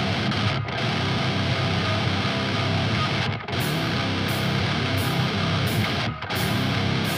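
Background rock music with electric guitar, dropping out briefly three times.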